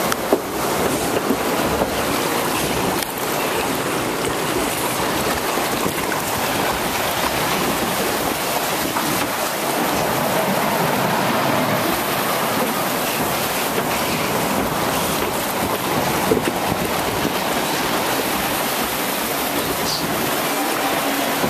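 Water rushing along a log flume trough as a ride log floats through it: a steady rushing noise, with one brief knock just after the start.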